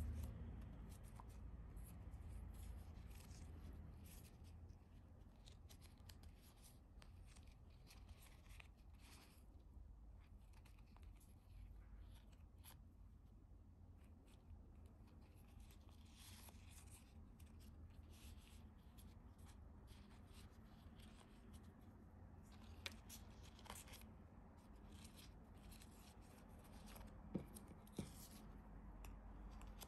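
Faint rustling and handling of paper sticker sheets and their packaging, in short scrapes and crinkles, with a few sharp small clicks or taps in the second half.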